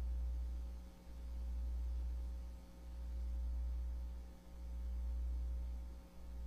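A low steady hum that dips briefly about every second and a half to two seconds, with faint steady higher tones over it.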